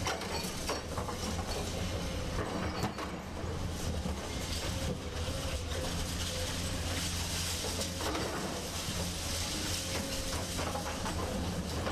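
Hyundai hydraulic excavator working: its diesel engine runs steadily under a wavering hydraulic whine, with repeated clanking and rattling throughout.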